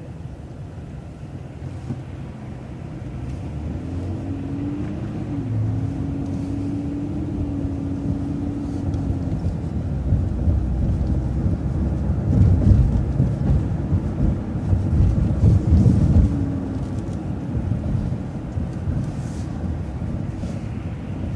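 City bus driving, with steady engine and road rumble inside the cabin. A steady whine comes in about 4 seconds in, and the rumble grows louder in surges around the middle, as the bus pulls away and gathers speed.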